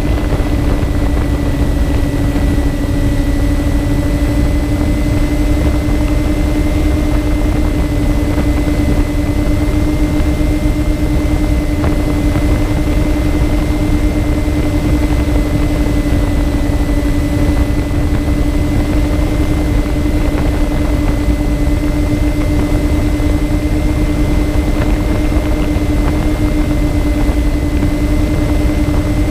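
Twin electric motors and propellers of a MyTwinDream FPV plane in cruise: a steady propeller hum held at constant throttle, over wind rushing past the onboard camera's microphone.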